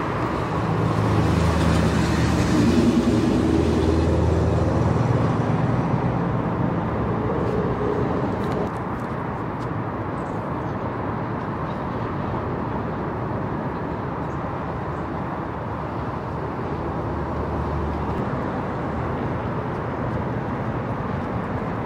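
Road traffic: a vehicle's engine rumbles past, loudest about three seconds in and fading by about six seconds, then a steady traffic hum with another engine passing near the end.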